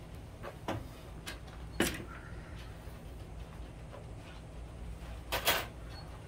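A few scattered knocks and clunks from someone moving about and handling things at a workbench, the loudest a double clunk near the end, over a low steady hum.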